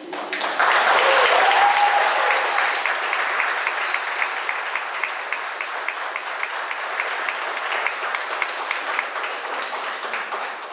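A small crowd of wedding guests applauding, with one voice cheering about a second in. The clapping is loudest at the start, then goes on steadily and dies away at the end.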